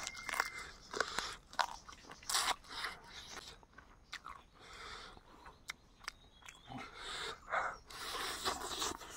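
A person biting and chewing a cooked chicken leg close to the microphone: irregular crunches and sharp clicks as the meat is bitten and chewed.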